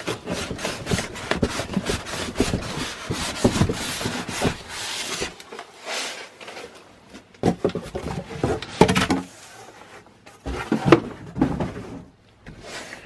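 Styrofoam packing blocks and foam wrap rubbing and scraping against cardboard as a boxed cutting machine is lifted out of its shipping box, a dense rustling for about five seconds, then a few shorter scrapes and knocks as it is set down.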